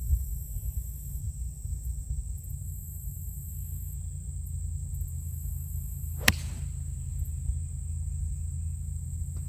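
Iron club striking a golf ball on a tee shot: one sharp click about six seconds in, over a steady low rumble and a high insect drone.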